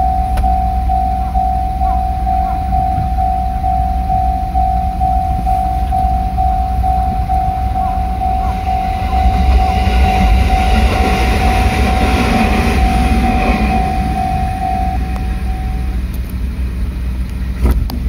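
Japanese level-crossing alarm ringing its steady electronic ding-ding, nearly two strokes a second, then stopping about three seconds before the end as the barriers start to lift. A low rumble runs underneath, and a rushing noise swells in the middle.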